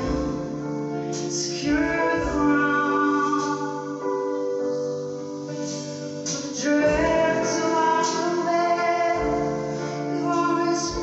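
A woman singing long held notes with a live band, drums and keyboard under her voice, heard through the hall from the audience. Low thumps and short cymbal-like hits come now and then under the sustained chords.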